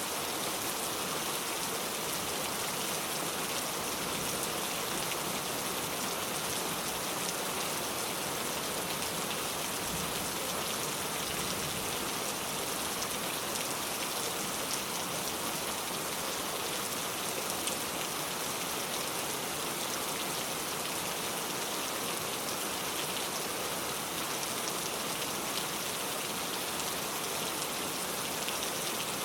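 Steady rain falling on a surface: an even hiss flecked with scattered drop taps.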